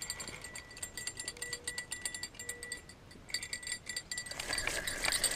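Spinning reel ticking in rapid spurts as its drag gives line to a channel catfish taking the bait. From about four seconds in it turns into louder rattling and clinking as the rod and reel are handled.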